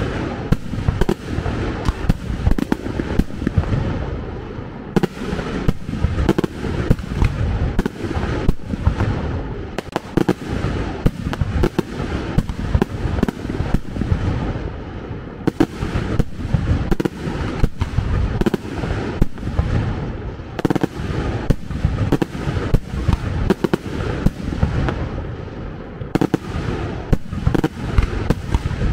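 Fireworks display: a continuous barrage of loud bangs and booms from bursting shells, several a second, with no let-up.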